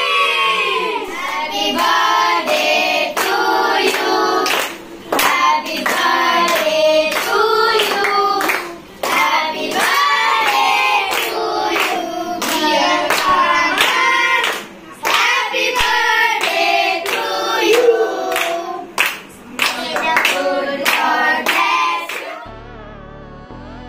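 A group of children and adults singing a birthday song together while clapping in time. Near the end the singing cuts off and quieter background music takes over.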